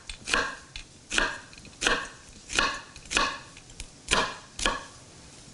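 A chef's knife chopping a white onion on a wooden cutting board: about eight sharp knife strikes at an uneven pace, some in quick pairs.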